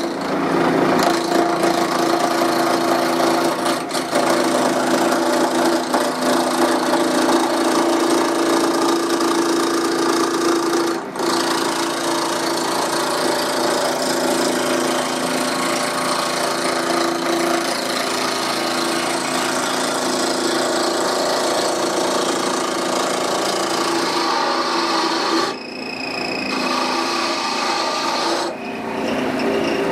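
Wood lathe running while a spindle gouge roughs a spinning wood blank into a cylinder: a steady motor hum under the loud scraping, rasping noise of the cut. The cutting noise drops away briefly twice near the end.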